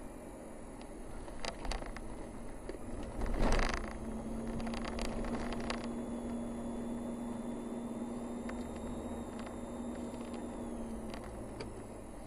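Car driving slowly on a narrow paved road, heard from an in-car dashboard camera: steady engine and tyre rumble with scattered clicks and knocks from bumps. A louder rattling burst comes about three and a half seconds in, and a steady hum then holds until about eleven seconds in.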